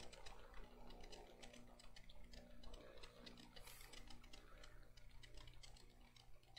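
Near silence with faint, quick ticks and scratches of a pen writing on paper close to the pulpit microphone, over a low steady hum.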